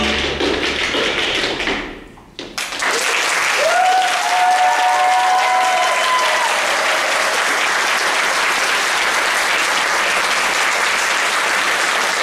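Audience applauding, breaking out about two and a half seconds in after the closing string music fades, with a few cheering voices over the clapping.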